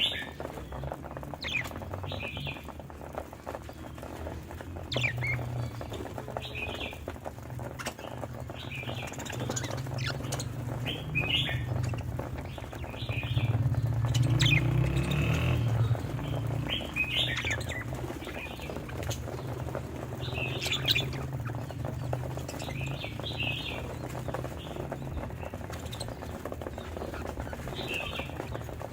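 Budgerigars chirping in short, scattered calls over a steady low rumble that grows louder about halfway through.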